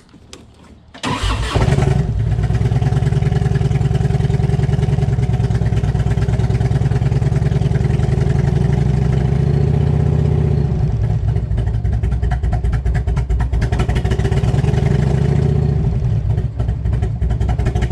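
Harley-Davidson touring motorcycle's V-twin engine cranked on the electric starter about a second in, catching almost at once and then running steadily.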